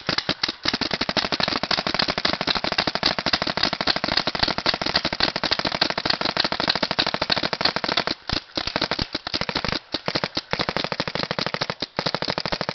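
Several paintball markers firing together in fast, unbroken strings of shots. The pops run into one another, with short breaks about eight, ten and twelve seconds in.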